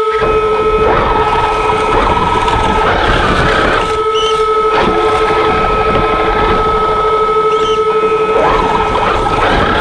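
Traxxas X-Maxx electric RC monster truck driving and plowing snow, heard from on board: a loud, steady rush of drivetrain and studded tyres and blade churning snow that starts suddenly right at the start, over a steady high whine.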